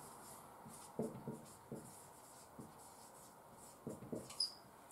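Marker pen writing on a whiteboard: faint short scratchy strokes in two groups, about a second in and again near the end, with a brief high squeak of the marker tip among the later strokes.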